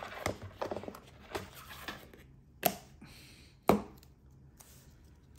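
Hands handling unboxing packaging and a watch band: a run of light clicks and taps, then two sharper knocks about two and a half and three and a half seconds in.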